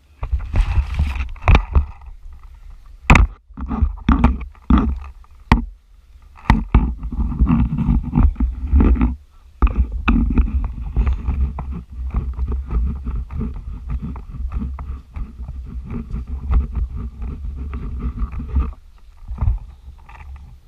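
Low rumbling and scraping noise with many sharp knocks scattered through it, easing off briefly near the end.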